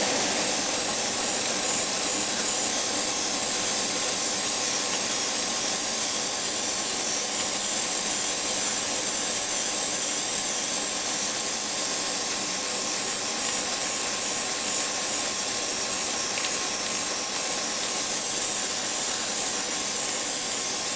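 Airbrush spraying Alclad II Chrome lacquer: a steady hiss of compressed air and paint mist, unbroken throughout.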